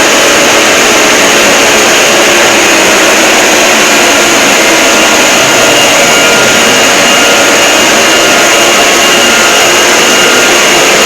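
Parody emergency-alert 'earrape' audio: a steady, extremely loud, heavily distorted noise with faint steady tones buried in it and no breaks.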